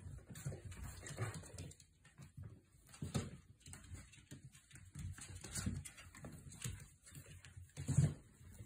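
Five-week-old goldendoodle puppies playing, with small puppy noises, rustling on blankets and irregular soft thumps, the loudest near the end.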